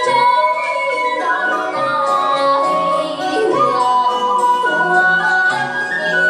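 Traditional Vietnamese water-puppet theatre music: a singer's voice holds long, wavering notes over the instrumental accompaniment.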